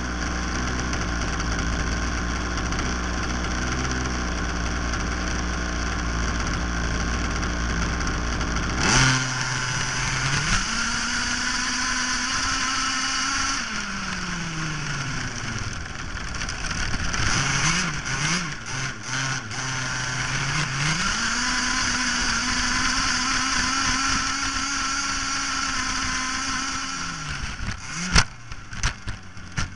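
Onboard sound of an RC car's motor. It hums steadily at first, then about nine seconds in it speeds up sharply to a high steady whine with a rush of air and grass noise as the car races over grass. The whine falls away, climbs again to the same high pitch, then drops, and near the end come a few sharp knocks as the car tumbles.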